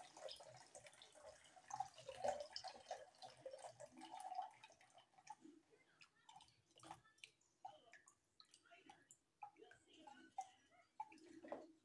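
Water draining from wet wheat seeds through a plastic colander into a plastic basin, faint: a thin trickle at first that thins out to scattered drips.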